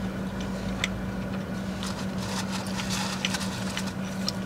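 Steady low hum of a car running, heard inside its cabin, with scattered faint clicks of chewing as a donut is eaten.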